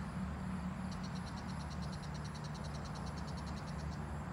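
Rapid, high-pitched pulsed trill of a calling insect, about ten pulses a second, starting about a second in and stopping near the end, over a low steady rumble.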